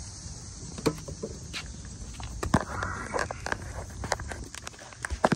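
Handling noises in a car's footwell: scattered clicks, knocks and rustling as wire and floor mat are handled and moved, over a steady low rumble.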